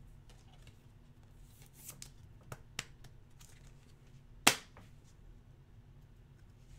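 Hockey trading cards being flipped through and set down by hand: a few light card flicks and clicks, with one sharp, louder snap about four and a half seconds in.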